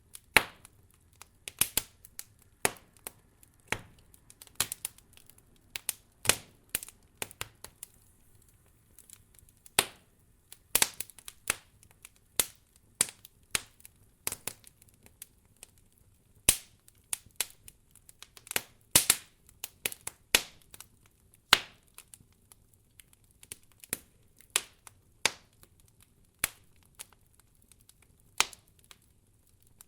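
Wood fire crackling: irregular sharp pops and snaps, sometimes several in quick succession, with quiet gaps between, over a faint low hum.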